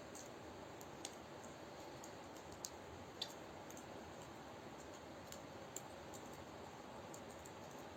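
A steady faint hiss with a handful of short, sharp clicks scattered through it.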